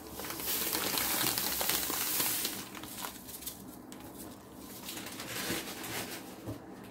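Granulated sugar poured from a bag into a metal bowl: a steady hiss of pouring granules for about two seconds, then fainter scattered ticks.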